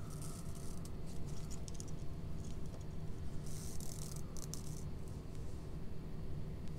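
Light crinkly rustling and small ticks of paper craft materials being handled by hand, heaviest for about a second around the middle, over a steady low room hum.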